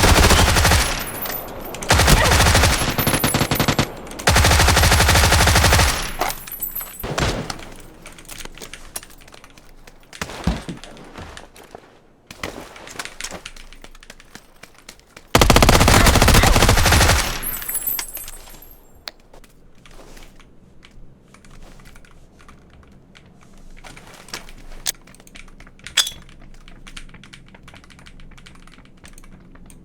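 Automatic gunfire in long rapid bursts of about two seconds each: three back to back at the start and another about fifteen seconds in, with scattered single shots and clatter between them.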